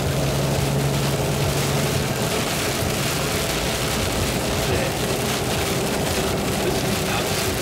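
Inside a car's cabin while driving through heavy cyclone rain: a steady wash of rain on the body and tyres on the wet road, over a low hum that fades out about two seconds in.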